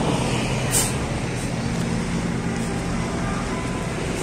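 Coach's diesel engine idling with a steady low hum, with a short hiss about a second in.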